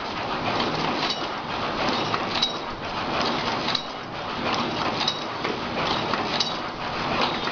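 Automatic paper cup forming machine running: a steady mechanical clatter with a sharp metallic clink repeating about every 1.3 seconds as the machine cycles.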